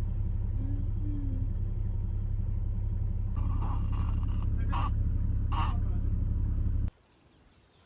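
Car cabin road noise: a steady low rumble from driving, with a faint voice early on and two short knocks in the second half. It cuts off suddenly about seven seconds in, leaving near silence.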